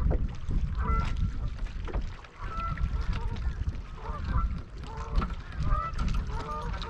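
Geese honking over and over, in short calls, over a steady low rumble.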